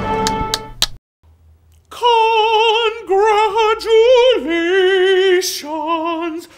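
A drag queen singing unaccompanied in a high, operatic voice with a wide vibrato, starting about two seconds in after the preceding music cuts off.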